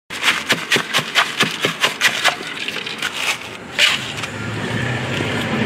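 Ice being broken up in a plastic bag: rapid knocks, about four a second for the first two seconds, then a few scattered ones. A low engine hum comes in near the end.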